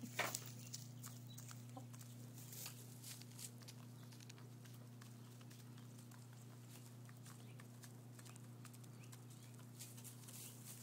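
Hens pecking at scratch grain in straw: a loose scatter of light taps and rustles, with a short cluck right at the start. A steady low hum runs beneath.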